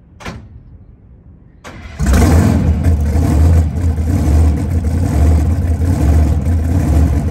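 Raminator monster truck's Hemi V8 engine starting about two seconds in: it catches suddenly and loudly, then keeps running with a deep, pulsing low note.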